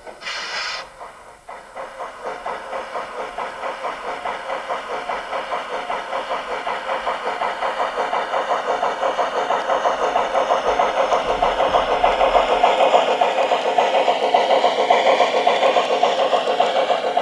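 Garden-scale model of a Harz narrow-gauge steam tank locomotive chuffing in a steady beat of about two to three puffs a second, growing louder as the train draws near. A short hiss at the very start.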